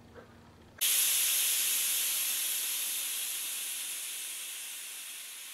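A steam-like hiss sound effect that starts suddenly about a second in and fades slowly over several seconds.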